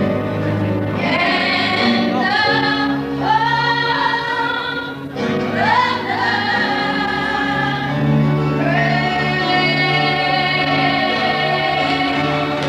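Gospel-style choir singing, with long held notes that slide between pitches.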